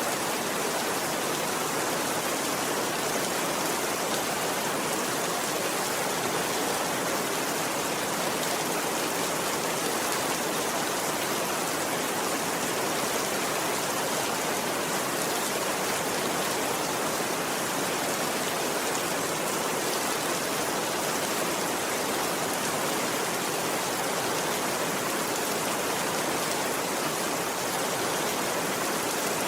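Steady rain falling, an even, unbroken hiss with no separate drops or crackles standing out.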